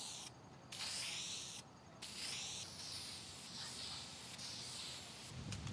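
Clear lacquer top coat being sprayed: a hissing spray in sweeping passes, stopping twice briefly in the first two seconds, then running on steadily. A short low thump comes near the end.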